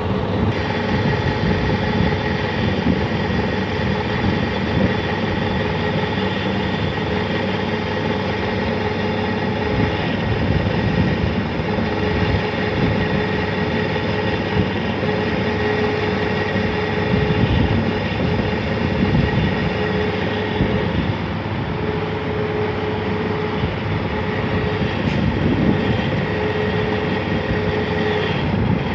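Lathe running while taper turning a workpiece: a steady machine hum with a constant whine from the motor and gearing.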